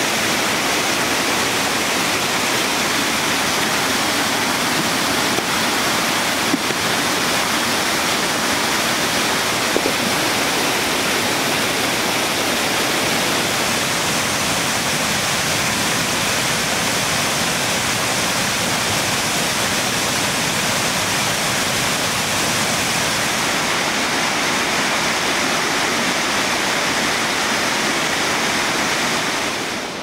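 Rocky mountain stream and small waterfall cascades rushing loudly and steadily. The rush drops off sharply just before the end.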